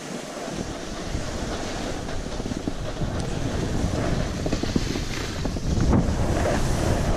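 Wind rushing over a moving camera's microphone while riding down a groomed ski slope, mixed with the hiss and scrape of sliding over packed snow. A low rumble comes in about half a second in.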